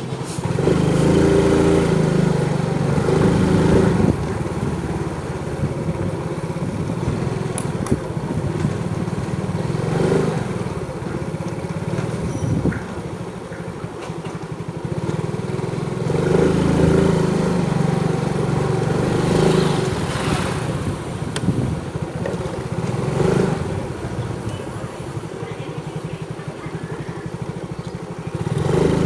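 Motorcycle engine running on the move, its note rising and falling as the rider speeds up and eases off, louder in stretches at the start, about two-thirds of the way through and at the end.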